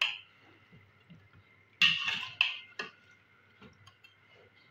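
A metal spoon scraping and knocking against a large aluminium pot while stirring raw chicken pieces in oil. A few short, sharp strokes, the loudest about two seconds in and another near the end.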